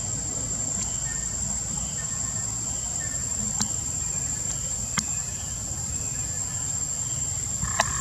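Steady, high-pitched drone of insects, over a low rumble, with a few sharp clicks: one about midway, one a little later and one near the end.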